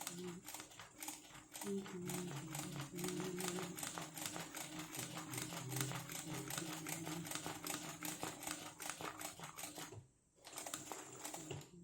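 Zigzag sewing machine running for free-motion embroidery: a rapid, steady chatter of needle strokes over a motor hum that shifts in pitch as the speed changes. It stops for about half a second near the end, then starts stitching again.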